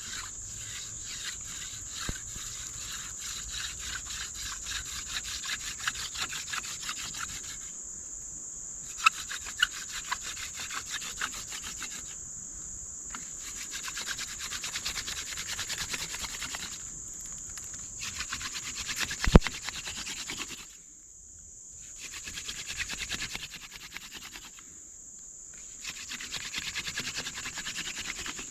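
Hand drill friction fire: a dog fennel spindle spun between the palms rubs against a cedar fireboard in runs of about four seconds, broken by short pauses. A steady high insect buzz continues underneath, and there is one sharp knock about 19 seconds in.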